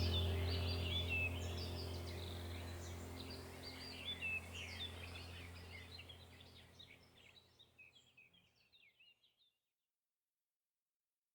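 Chorus of many birds chirping and calling, over a low steady hum, both fading out to silence about seven seconds in.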